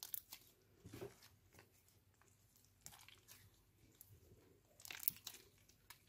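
Sticky clear slime mixed with lipstick being stretched, folded and squeezed by hand, giving off faint, irregular wet crackles and pops in small clusters. The loudest come just after the start and about five seconds in.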